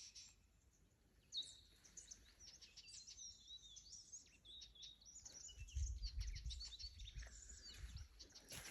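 Small birds chirping in quick, sliding high notes, one sharper chirp standing out about a second and a half in. A low rumble joins from about halfway through.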